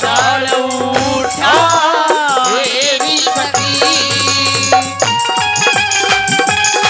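Live folk band music with no words sung: a sliding melodic line over drums and rattling percussion. About five seconds in it turns to held chords over a quick, steady drum beat.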